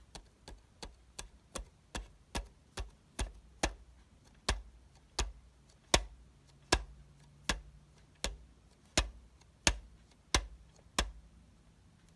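A series of sharp clicks or taps, quick and faint at first, then slowing to about one every two-thirds of a second and growing louder, stopping about a second before the end.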